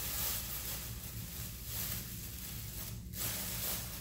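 Thin plastic grocery bag crinkling and rustling as a cat tangled in it squirms and a hand tugs at the bag, with a brief pause a little after three seconds in.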